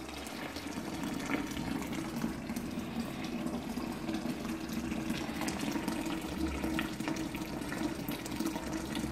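Wort boiling in a stainless Buffalo electric boiler: a steady bubbling rumble with scattered crackles, at a rolling boil.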